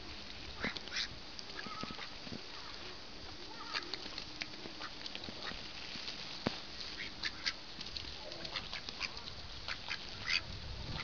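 Flock of domestic ducks quacking in short, scattered calls that overlap irregularly, with one sharp click about six seconds in.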